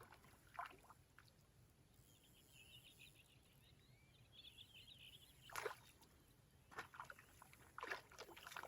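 Faint outdoor quiet, with a small bird's warbling, chattering song for a couple of seconds in the middle and a few short knocks or splashes, the loudest about two-thirds of the way in.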